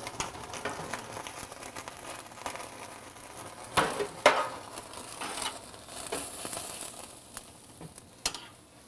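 Raw Cornish hens singeing directly over a gas burner flame, the skin sizzling and crackling, with metal tongs clacking against the birds and the burner grate. The loudest clacks come about four seconds in, with another near the end.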